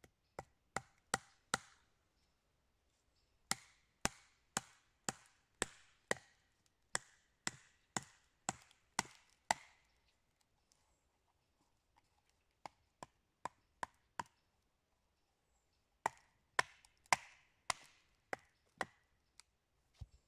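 Wooden baton knocking repeatedly on a short log round to split it (batoning). The knocks are sharp and come about two a second in runs: four, then a long run of about a dozen, then four lighter ones, then about eight more near the end.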